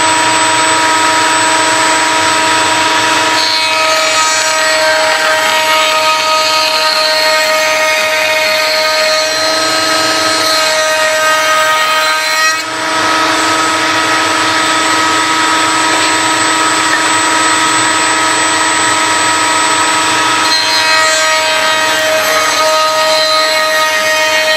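Table-mounted router running with a steady high whine as timber is fed past an Amana Tool A.G.E. Roman ogee stile-and-rail bit, the cutting noise changing from one piece to the next, with a brief dip about halfway through.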